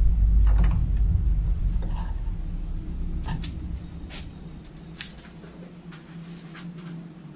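Grinder spinning down after being switched off at the end of a cut through steel, its low running sound fading away over a few seconds. A few sharp metallic clinks come from handling the metal, the loudest about five seconds in.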